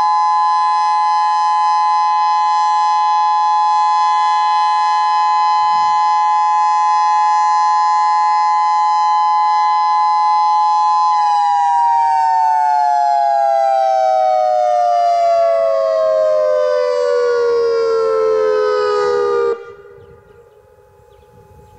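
Federal Signal Modulator 6024 electronic outdoor warning siren sounding a loud, steady chord of several tones. About halfway through the pitch winds down in a slow falling glide, and then the tone cuts off abruptly near the end.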